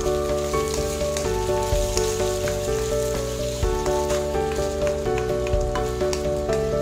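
Instrumental background music with held notes that change every half second or so, over ground beef sizzling and crackling in a nonstick wok as it is stirred with a wooden spatula.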